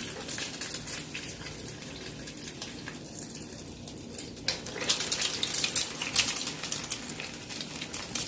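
Egg-coated tuna cutlets deep-frying in hot oil in a karai: a steady sizzle with sharp crackles that grow busier and louder about five seconds in.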